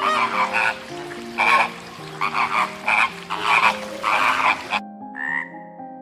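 A flock of flamingos calling: harsh, nasal honks repeated about once every half second to second, stopping suddenly about five seconds in. Soft piano music runs underneath.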